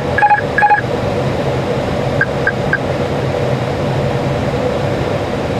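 Steady cockpit noise of an Airbus A321-200 on final approach, airflow and engine hum. In the first second three short electronic alert tones sound, and about two seconds in three fainter short beeps follow.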